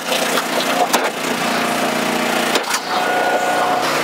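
Engine of an Eastonmade 12-22 hydraulic log splitter running steadily while the box wedge splits a northern red oak round. The wood gives several sharp cracks and splintering sounds as it splits.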